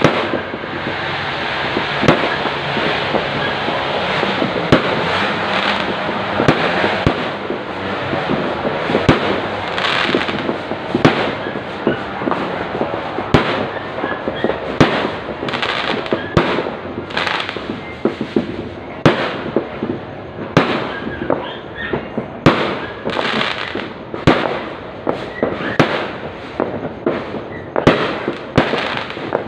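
Fireworks going off: many sharp bangs over a dense crackle at first, thinning in the second half to separate bangs, several a second.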